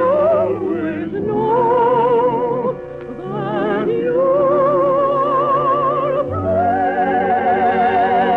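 Operatic solo singing in long held notes with a wide vibrato, stepping from one pitch to the next, over a sustained orchestral accompaniment, with a brief drop in loudness about three seconds in.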